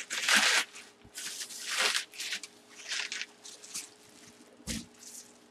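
Plastic bubble wrap crinkling in several short bursts as it is handled around a full-size football helmet, with a dull thump near the end.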